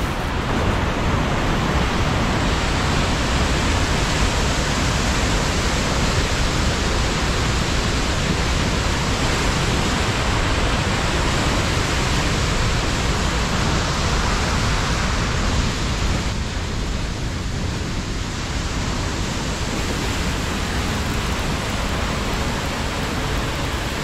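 Chaudière Falls' water rushing steadily, a loud, even noise that eases slightly for a few seconds about two-thirds of the way in.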